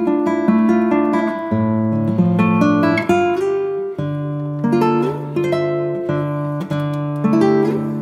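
Background music: a melody of plucked notes, each struck sharply and then fading, changing every half second or so.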